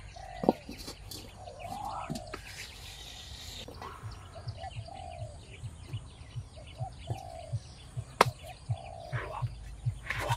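Short falling bird calls repeat throughout, over a regular low pulsing of about three beats a second that begins a few seconds in. Two sharp knocks stand out, one near the start and one about eight seconds in.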